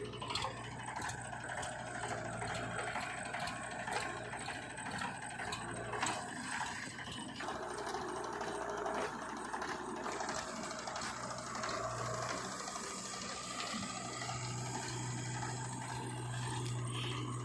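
Diesel earth-moving machinery running steadily, with a low engine hum and constant metallic rattling and clicking; the hum swells about twelve seconds in.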